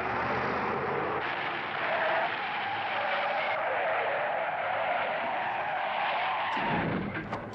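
Car tyres screeching in a long, continuous skid as the car swerves and brakes hard. The screech ends abruptly near the end, followed by a brief low rumble and a few sharp clicks.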